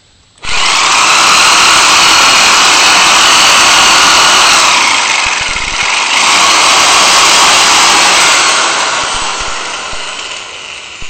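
Electric sheet-metal shear running and cutting through 1/16-inch steel sheet: a loud, steady motor-and-cutting noise that starts about half a second in, dips briefly near the middle, then carries on and trails off over the last couple of seconds.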